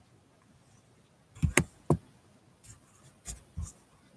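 Finger clicks on a laptop trackpad: three sharp clicks in quick succession about a second and a half in, then a few softer taps.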